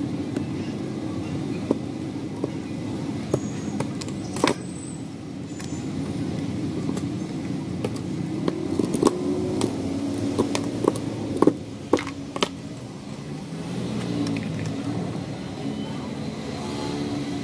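Scattered sharp clicks and cracks of a craft knife cutting and snapping wooden ice cream sticks, coming most thickly between the middle and about two-thirds of the way through. A steady low background rumble runs underneath.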